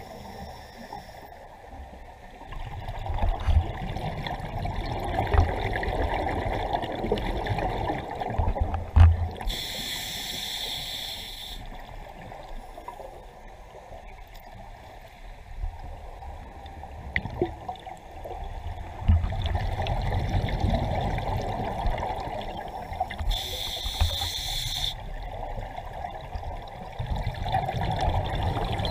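Scuba diver breathing through a regulator underwater: two short hissing inhalations, about ten seconds in and again about twenty-four seconds in, between long stretches of exhaled bubbles gurgling.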